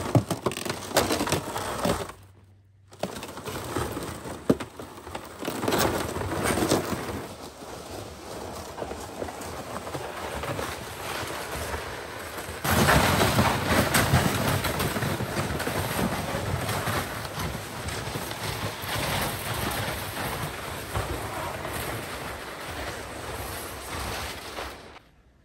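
A loaded plastic sled being dragged and sliding over snow: a continuous scraping hiss with many small crunches. It drops out briefly about two seconds in and grows louder about halfway through.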